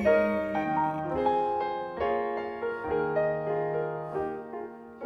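Solo piano playing a slow interlude of chords and single notes, each struck note ringing and decaying. It softens near the end.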